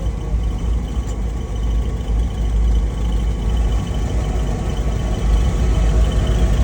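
WDG4G diesel-electric locomotive running with a steady, loud low rumble and a faint high whine above it.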